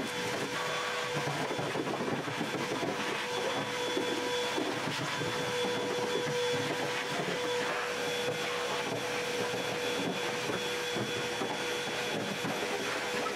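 Vacuum cleaner running steadily with a constant whine, its hose sucking dust and debris off the bare steel floor pan of a car body shell.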